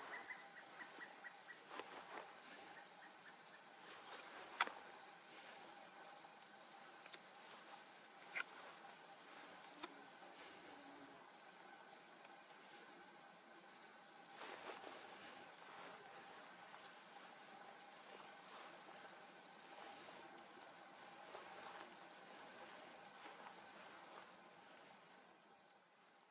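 Chorus of singing insects: a steady, high-pitched, rapidly pulsing trill that goes on without a break, with a faint click about four and a half seconds in.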